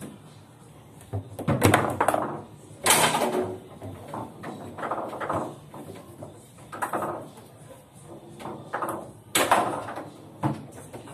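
Table football game in play: the ball being struck by the plastic players and knocking against the table walls, with rods clacking, making a string of sharp irregular knocks and bangs. The loudest bangs come about three seconds in and again near nine and a half seconds.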